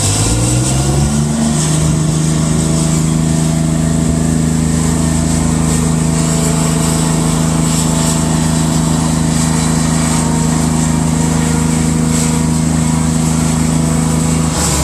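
Merkava Mk 4M tank's V12 diesel engine revving up over the first second or two, then held at a steady high speed, its pitch dropping near the end.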